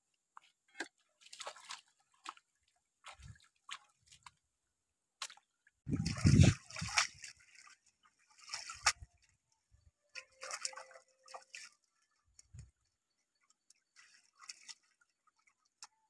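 Fish being rinsed by hand in a woven basket in shallow stream water: intermittent sloshing, splashing and dripping. A heavier slosh with a low thump comes about six seconds in.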